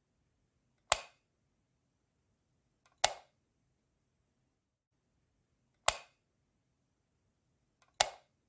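Light switch clicking four times, each a sharp snap with a short fading tail, a second or two apart, as an incandescent bulb is switched on and off. The second and fourth clicks each have a faint tick just before them.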